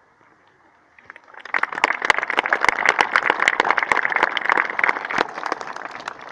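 Crowd applauding: clapping starts about a second in, swells quickly, and begins to die away near the end.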